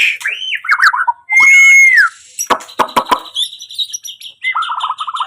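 White-rumped shama (murai batu) singing a varied song: whistled notes that glide up and down, a loud held whistle, a few sharp clicks, then rapid trills near the end.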